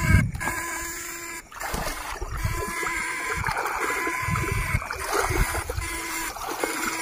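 Legs wading through shallow flooded rice-field water, with several short splashes, over a steady background of several held tones.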